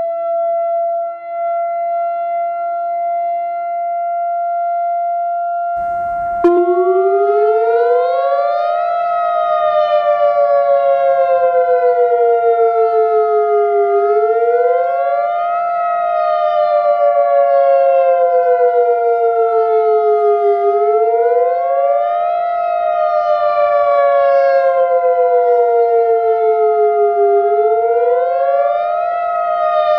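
Tornado warning siren sound: a steady held tone. About six seconds in, after a click, a wailing tone joins it, rising quickly and falling slowly about every seven seconds.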